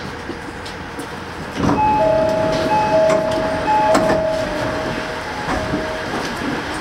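Railway train sounds at a station platform: a steady rumble, which grows louder about a second and a half in. It is joined by a few steady high tones that switch on and off for several seconds, and scattered clicks.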